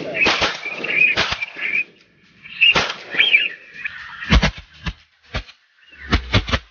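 Shotgun shots at waterfowl: a string of sharp reports, the loudest pair about four and a half seconds in and a quick cluster near the end, with high wavering bird whistles in the first half.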